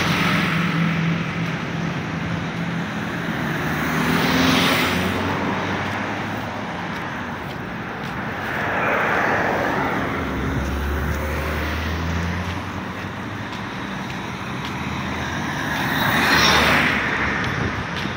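Road traffic on a multi-lane city street: cars and vans passing one after another, each swelling and fading away, about four passes in all. A low engine hum from a car driving close by comes in about halfway through.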